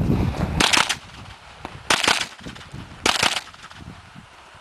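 Rapid gunfire from a 9mm AR-15 carbine: three quick strings of two or three shots each, about a second and a quarter apart.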